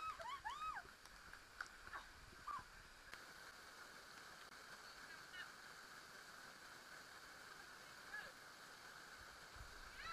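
Faint steady rush of a gorge stream running over rocks, with a few brief high, arching calls near the start.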